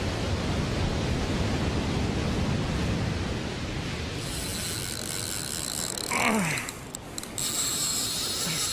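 Surf and wind against a rock ledge, then about four seconds in a fishing reel's drag starts buzzing as a hooked fish pulls line off the spool. The drag breaks off briefly near seven seconds and starts buzzing again.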